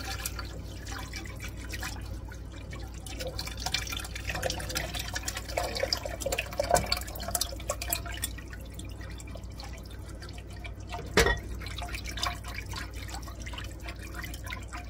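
Chicken broth poured from a glass bowl into a pan of roux while a wire whisk stirs it, with liquid splashing and dribbling and small irregular clicks of the whisk in the enamelled cast-iron pot. There is a single sharp knock about eleven seconds in.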